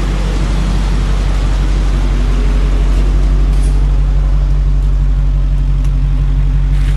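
2010 Dodge Challenger R/T's 5.7-litre Hemi V8 idling steadily, its exhaust heard close behind the car at the rear bumper.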